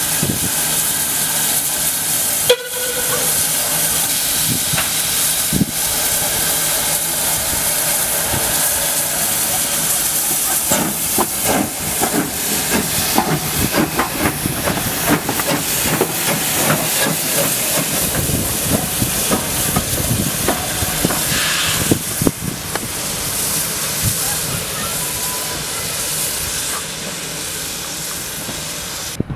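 Steam tank locomotive Caledonian Railway No. 419 (BR 55189), a 0-4-4T, hissing loudly and steadily from escaping steam. About ten seconds in, a run of sharp knocks comes as it moves past.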